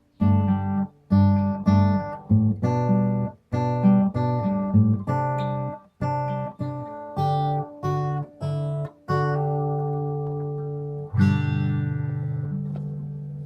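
Acoustic guitar music: a run of strummed chords, each struck and cut short, then a final chord about two-thirds of the way in that is left to ring and slowly fade.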